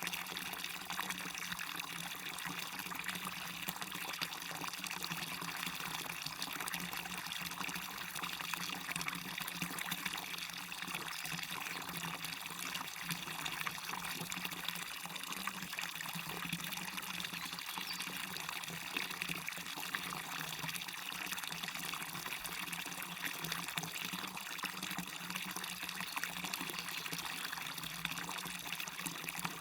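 Waterfall on a stream: water falling and splashing in a steady, even rush with no breaks.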